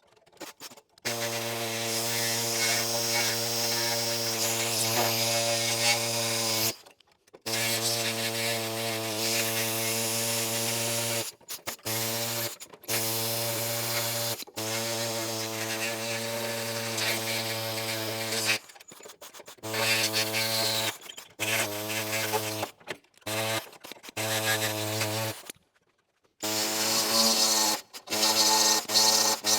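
Welding on the sheet-metal door seams in short runs: a steady buzz with hiss that cuts off abruptly and starts again every few seconds.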